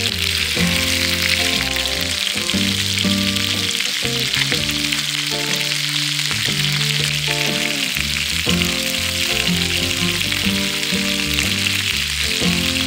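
Food frying in a pan of hot oil, a steady sizzle, with background music playing over it.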